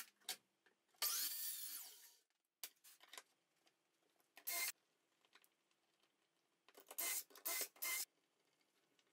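DeWalt cordless drill run in short trigger bursts while fastening aluminium T-track into a routed groove. The longest run comes about a second in, with its pitch dipping and recovering under load. A short burst follows near the middle and three quick bursts near the end, with light clicks and rubbing between them.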